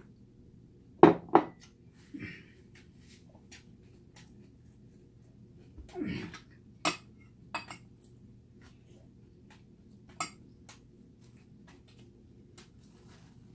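A glass cup is set down on a wooden table with two sharp knocks about a second in. Light clicks of chopsticks against a small bowl and dishes follow during eating.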